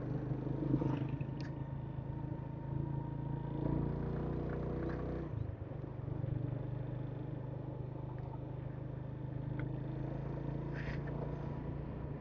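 Motorcycle engine running steadily under way, heard from the rider's seat, with a brief dip in its note about five and a half seconds in.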